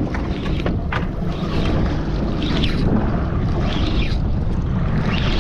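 Steady wind noise buffeting the microphone, with water moving against the hull of a small open fishing boat and a couple of sharp knocks about a second in.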